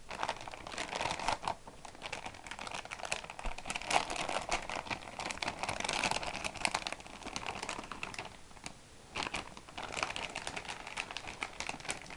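Metallic anti-static bag crinkling and rustling as a graphics card is handled and unwrapped from it, with a brief lull a little past two-thirds through.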